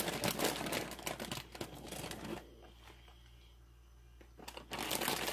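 A fork tossing dressed shredded broccoli slaw in a bowl: crisp rustling with small clicks of the fork. It pauses for about two seconds in the middle, then starts again.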